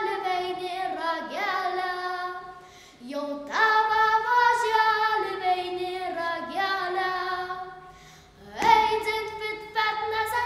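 A girl singing a Lithuanian folk song solo and unaccompanied, in long held phrases with two short breaks for breath.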